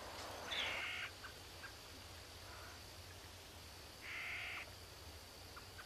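A bird calling: two short calls of about half a second each, one near the start and one about four seconds in, with a few fainter calls between them.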